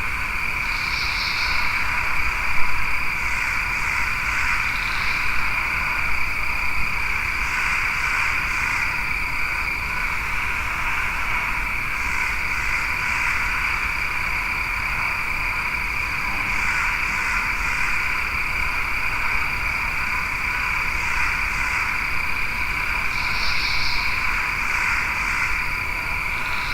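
Night chorus of frogs and insects: a dense, unbroken trilling with a thin high steady buzz over it. Short groups of three or four high chirps repeat every few seconds.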